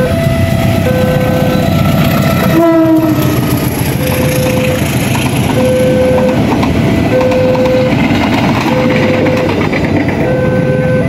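Passenger train running past a railway level crossing with a loud, steady rumble, while the crossing's electronic warning alarm alternates between two tones about every three quarters of a second. About two and a half seconds in, the train's horn sounds briefly, falling in pitch as it goes by.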